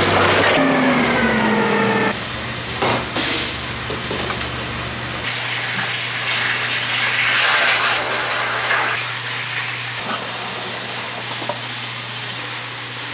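Oxy-acetylene cutting torch used for brazing, its flame giving a steady rushing hiss that swells in the middle, over a constant low hum. A motor's whine falls slightly in pitch and stops about two seconds in.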